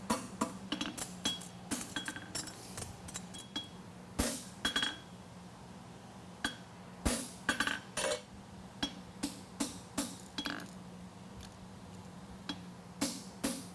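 Hand hammer striking a steel horseshoe bar on an anvil, each blow a sharp clink with a short metallic ring. The blows come in irregular runs with brief pauses as the heel of a concave front shoe is flattened and shaped. A steady low hum runs underneath.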